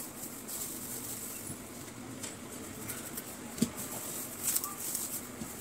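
Plastic bubble wrap being handled, crinkling in short irregular bursts with a few sharp clicks, the loudest about three and a half seconds in.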